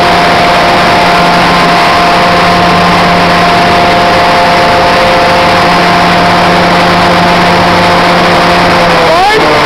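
Caterpillar 785C haul truck's large diesel engine running steadily under load, with a steady whine over an even roar. About nine seconds in, the pitch sweeps sharply up and then settles lower.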